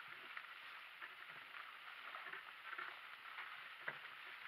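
Donkey-drawn cart rolling at a walk on a dirt track: faint steady crunching of the wheels and hooves, with soft thuds about twice a second and small scattered ticks, one sharper click near the end.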